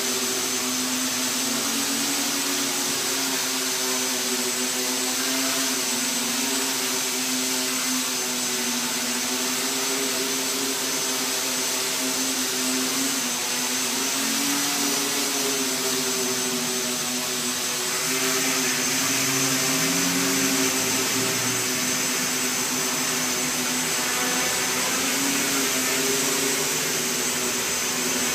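SK450 quadcopter hovering: its four electric motors and propellers make a steady buzzing whir whose pitch wavers slightly as the throttle is adjusted. It gets a little louder about two-thirds of the way through.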